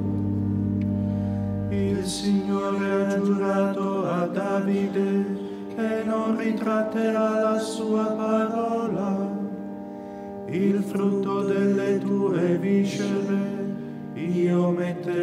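Liturgical psalm chant: a single voice sings a slow, melismatic line over held accompanying chords. A low sustained note drops out about two seconds in.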